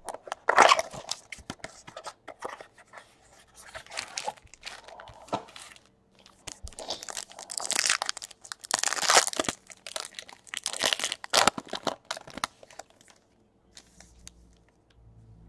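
Foil wrapper of a 2017 Bowman Chrome baseball card pack crinkled and torn open by hand: a dense run of sharp crackles, loudest in the middle, dying away near the end.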